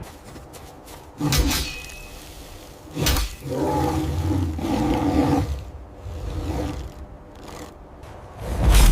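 Giant wolf growling in a film sound design, a deep pitched snarl lasting about two seconds midway, with a shorter one after. Heavy thuds strike about a second in, at about three seconds, and loudest near the end.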